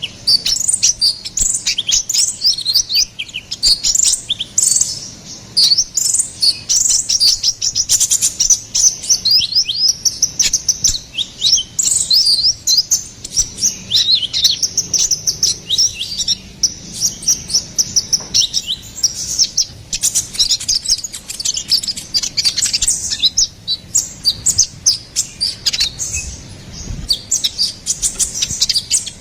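Konin kolibri ninja, a sunbird, in full song: fast runs of high, thin chirps and twittering trills that follow one another almost without a break, easing off for a moment about five seconds in.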